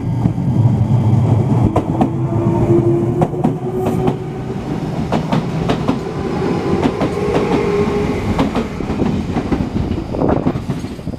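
Enshu Railway 2000-series electric train running, its wheels clacking over rail joints in a quick series of sharp clicks over a steady rumble. A faint whine rises gently in pitch a couple of times.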